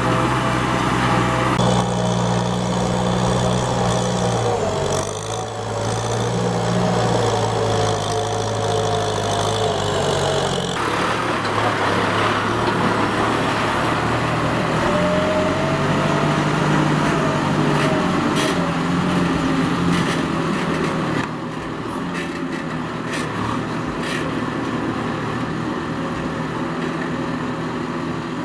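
Kubota M6040SU tractor's diesel engine running steadily under load while it pulls a disc harrow through dry soil. Its tone changes abruptly a few times. Light clicks and clatter come in over the second half.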